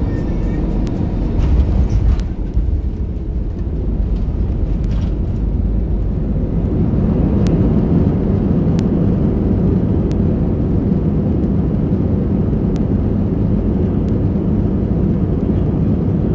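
Airbus A320 cabin noise on the landing roll: a loud, steady low rumble of the engines and the aircraft rolling on the runway. The rumble is heaviest at first and eases about two seconds in, then builds again, with faint regular ticks a little more than a second apart.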